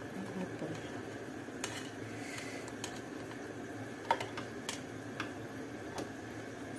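Chicken simmering in sauce in a frying pan, a steady low bubbling hiss, with a few light clicks of a metal fork against the pan and cookware, the sharpest about four seconds in.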